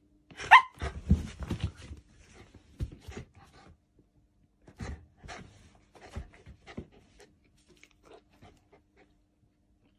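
Shiba Inu panting eagerly in quick irregular bursts while begging for food, with one brief high whine falling in pitch about half a second in. The panting is densest in the first couple of seconds, then grows sparser.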